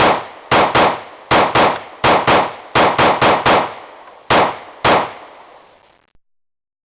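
Compensated Glock 19C 9mm pistol fired rapidly: about a dozen loud shots, mostly in quick pairs about a quarter second apart, with a run of four in a row in the middle and two single shots near the end, each ringing away before the next.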